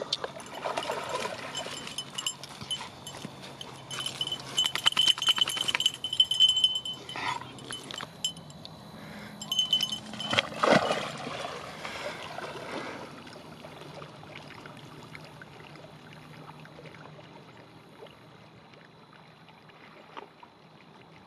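A German Shorthaired Pointer wades out of the water through grass and reeds, with rustling and splashing, and a high chiming tone comes and goes for several seconds about a third of the way in. After about 13 s it turns quieter, leaving a softer, steady water noise.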